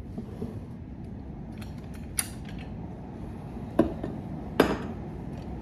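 Bed-rail frame pipes being handled and pulled apart at their joints: light scraping, a small click about two seconds in, then two louder sharp clacks near the end.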